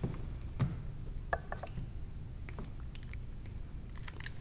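Quiet room tone with a steady low hum and a few scattered faint clicks and handling sounds.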